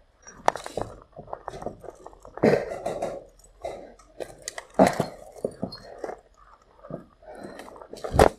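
Boots and hands crunching and scraping on broken brick and rubble, with irregular sharp knocks, as someone climbs through a wall opening and down onto a debris-covered floor.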